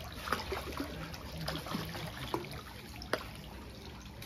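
Hooked bawal (freshwater pomfret) splashing at the water surface as it is reeled in, with several short, sharp splashes over a steady watery background.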